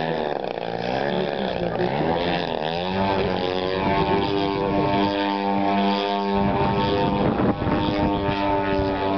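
Engine and propeller of a radio-controlled aerobatic model plane in flight. The pitch swings up and down for the first few seconds, then holds steady at a high, even drone.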